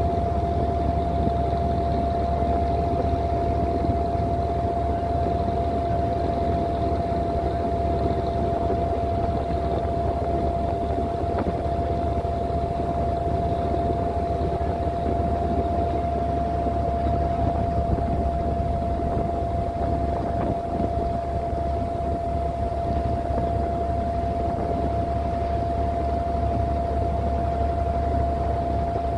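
Wooden abra water taxi's inboard diesel engine running steadily under way, a low drone with a constant whine above it and the rush of water along the hull.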